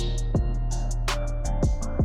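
Background music: an electronic track with a steady beat of kick drum and hi-hats over a sustained bass line.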